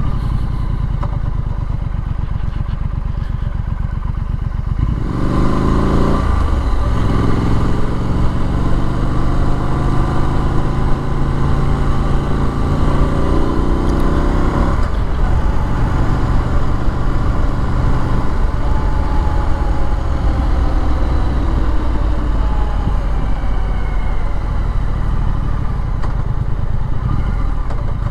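Triumph Street Scrambler's parallel-twin engine heard from the saddle, running at low revs for about five seconds, then pulling away with rising revs. There is a break in the pitch just after that and another about halfway through, like gear changes, and then it settles to steady running.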